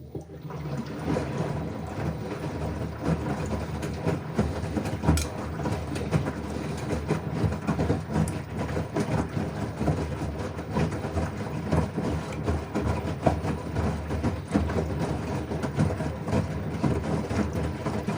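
LG washing machine running, its drum turning with a steady hum and frequent irregular knocks and clatter. The sound starts suddenly right at the beginning.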